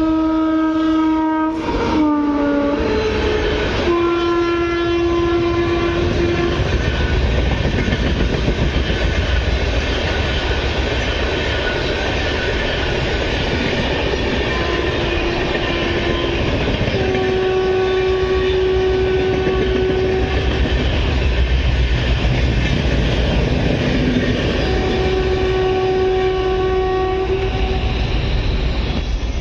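Indian Railways train horn blowing repeatedly in long blasts, one dropping in pitch as the train goes by, over the steady rumble and clatter of a train passing at speed.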